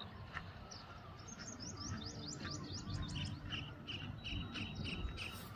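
Small birds chirping: a quick run of short rising notes, then a steady series of repeated chirps at one pitch, several a second.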